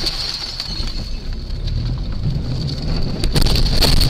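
Road and wind rumble inside a moving car, picked up by a dashcam, with a steady thin high whine. About three seconds in comes a run of sharp knocks and clatters as the car crashes and the dashcam is knocked from its mount.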